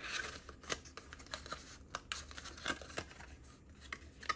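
Paper card being handled and unfolded: light rustling with scattered small clicks and taps, the loudest one near the end.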